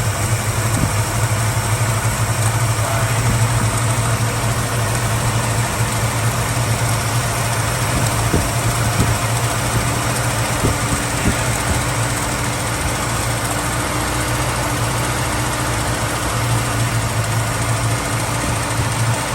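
Valiant Charger's engine idling steadily after an oil change.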